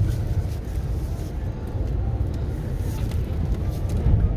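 Derecho straight-line winds buffeting a truck and the microphone, heard from inside the cab as a heavy, uneven low rumble that swells and eases with the gusts.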